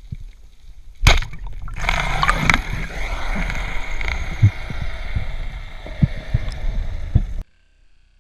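A speargun fires underwater with a single sharp crack about a second in. A loud rushing hiss with irregular knocks follows as the speared wahoo makes its high-speed run, and it stops suddenly near the end.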